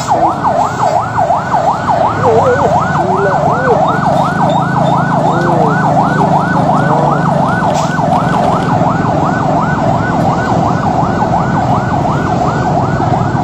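Siren yelping: a fast, steady run of rising whoops, about three a second, over a low hum.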